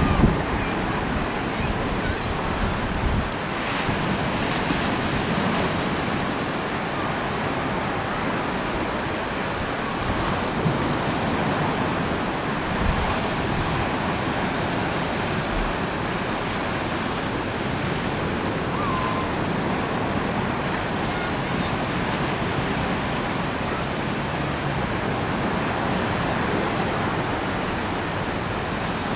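Steady wash of choppy river water, with wind blowing on the microphone and a few low gusty buffets.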